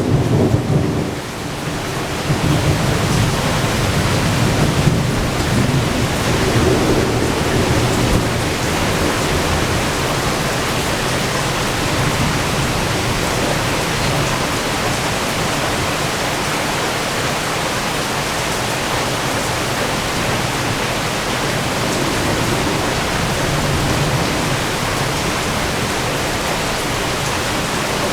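Heavy thunderstorm rain falling steadily, with a long roll of thunder rumbling low in the first several seconds and fading out, leaving the rain alone.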